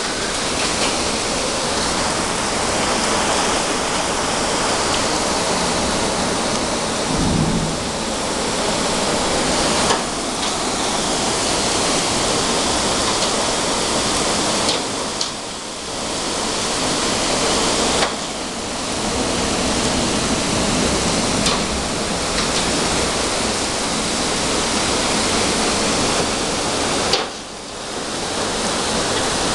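Torrential storm downpour driven by strong wind: a loud, steady rushing of heavy rain that eases briefly twice, about halfway through and near the end.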